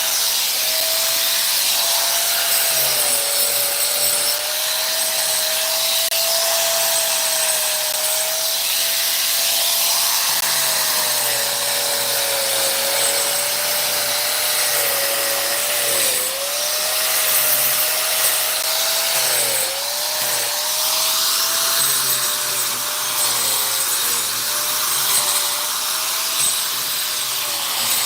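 An electric power tool's motor running continuously under steady noise, its whine wavering in pitch and dipping sharply twice in the second half.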